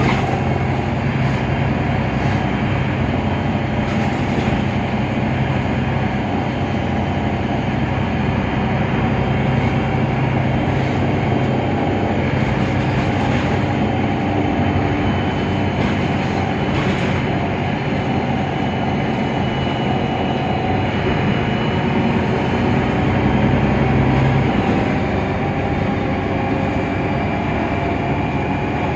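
Mercedes-Benz Citaro O530 Ü city bus with its OM 906 hLA diesel engine running: a steady low drone with a rumble and a few sharp clicks. The drone drops away about 25 seconds in.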